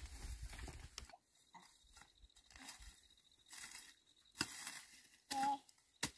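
Dry grass and brush rustling and crunching in scattered crackles as it is pulled and handled by hand. A brief wavering tone sounds about five seconds in.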